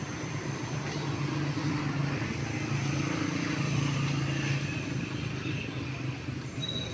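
A motor vehicle's engine passing: a low hum that swells around the middle and fades away, over general outdoor noise, with a brief high-pitched tone near the end.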